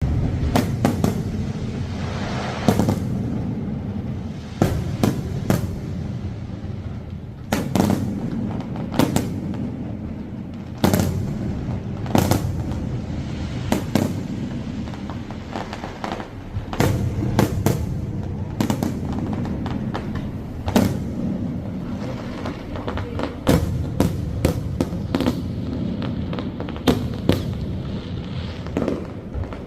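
Fireworks going off, sharp bangs every second or two and sometimes several in quick succession, each followed by a short rumbling echo, with music playing underneath.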